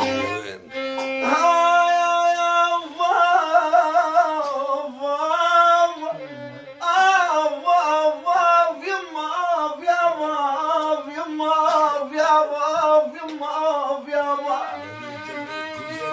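Live Arabic folk music: a violin and a voice in a slow, heavily ornamented melody with wavering vibrato, over a long held note in the middle.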